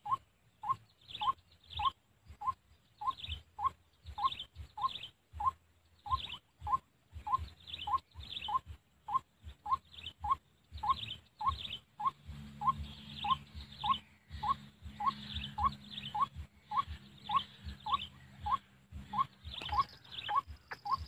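White-breasted waterhen calls: a short note repeated evenly and without pause, about twice a second.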